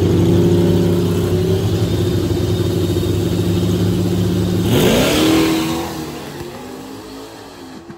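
A high-powered car's engine running loud under hard acceleration, with a sharp rising rev and a rush of hiss about five seconds in as the car speeds off, after which the engine sound fades away.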